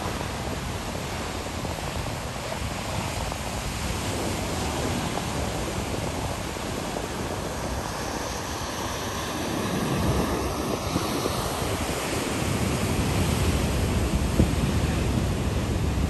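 Waves breaking and washing over rocks: steady surf noise with wind buffeting the microphone. The wash swells louder about ten seconds in and stays a little louder toward the end.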